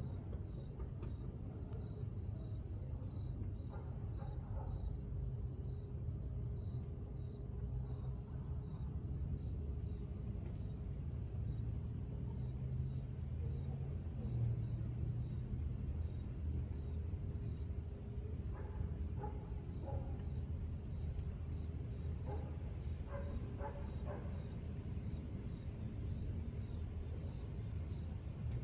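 Crickets chirping in a steady, fast pulsing trill, over a continuous low rumble.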